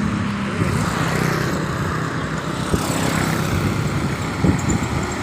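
Engines of road traffic running and passing by, a steady engine drone over road noise, with two short sharp knocks, one near the middle and a louder one near the end.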